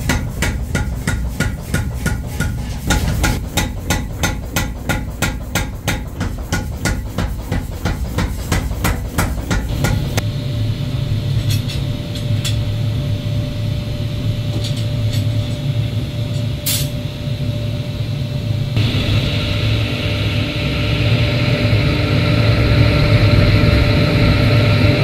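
Rhythmic hammering on metal at a forge, about three blows a second, stopping about ten seconds in. It gives way to a steady low hum with a few sharp clicks.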